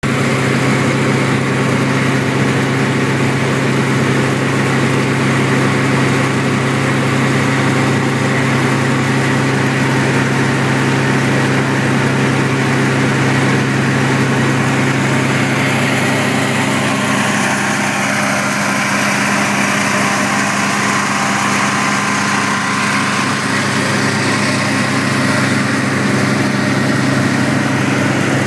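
Small gas engine of power-washing equipment running steadily at constant speed, with a hiss over it; about two-thirds of the way through, the tone shifts a little.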